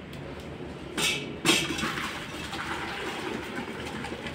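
Liquid being poured into a metal cooking pot on a wood-fired stove: two sharp metal knocks about a second in, then a steady pouring splash.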